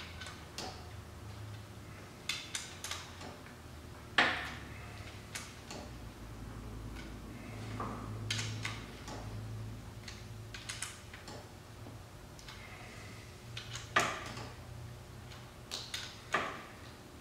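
Hand wrench and socket on the engine bolts of a 1997 Polaris Sportsman 500 being tightened a quarter turn each: scattered sharp metal clicks and clinks, a few in quick runs, the loudest about four seconds in and again near fourteen seconds.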